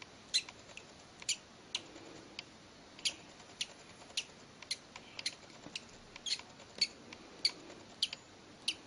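Baby bird peeping: a string of short, high-pitched squeaks about one or two a second, unevenly spaced.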